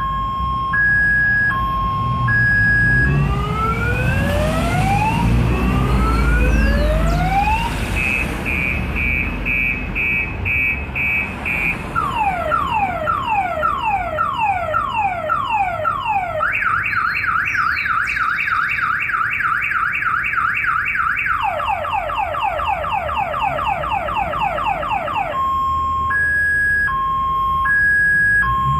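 Car alarm siren cycling through its programmed tones: a two-note alternating hoot, then rising whoops, a rapid chirp, slower falling sweeps, a fast warble and quicker falling sweeps, returning to the two-note hoot near the end.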